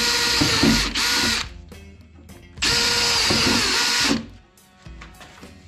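Makita 18 V cordless drill spinning a 9 mm bit through the car's steel door skin, widening a mirror-mounting hole to its final size. It runs with a steady whine in two goes: the first stops about a second and a half in after a brief break, the second starts just before the three-second mark and runs for about a second and a half.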